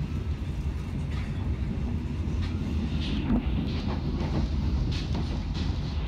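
Passenger train coach running at speed, its wheels making a steady low rumble on the rails, heard from inside the carriage. From about halfway through come a few short, sharper sounds over the rumble.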